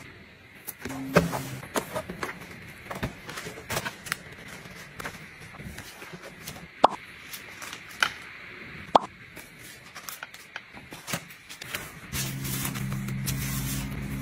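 Household items being handled and set down: scattered light clicks and taps, with three sharper knocks in the middle. A steady low hum starts near the end.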